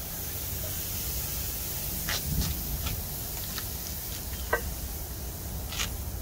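Spatchcocked chicken sizzling on a hot steel grate over glowing charcoal: a steady hiss with a few scattered sharp crackles.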